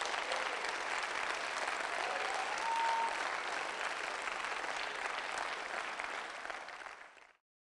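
Audience applauding steadily, then cutting off suddenly near the end.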